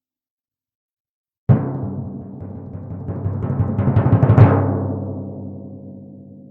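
Intro music sting. A sudden drum hit comes about a second and a half in, then a drum roll swells to a final loud hit near the end and rings out slowly.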